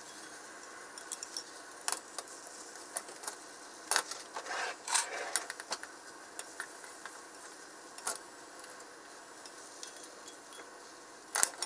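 Scattered light clicks, clinks and scrapes of a metal square tamagoyaki pan and a spatula as a rolled omelette is turned and the pan is lifted and set back on the gas hob's grate, over a faint steady hiss; a quick cluster of them comes about four to five seconds in.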